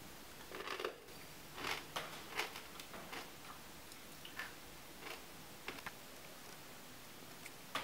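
Dry, crisp food flakes crunching: about a dozen short, faint crackles and clicks at uneven intervals.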